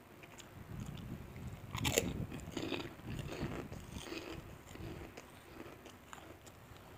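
A person biting and chewing crunchy fried food close to the microphone, with a sharp crunch about two seconds in and softer crackly chewing after it.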